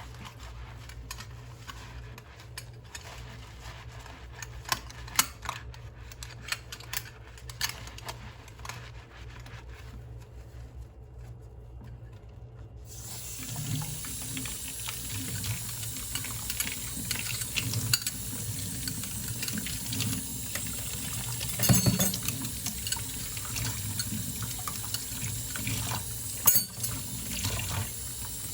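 Dishes being handled at a kitchen sink, with scattered light clinks and clatters. About halfway through, the tap is turned on and water runs steadily into the sink, with a few louder clinks of dishes under the stream.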